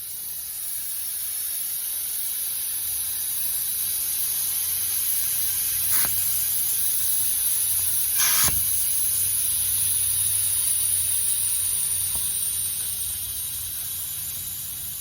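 Air hissing steadily out of a wheel's tire through the open valve stem, its core pulled to deflate it. The hiss swells over the first few seconds and then slowly tails off, with two short clicks about six and eight seconds in.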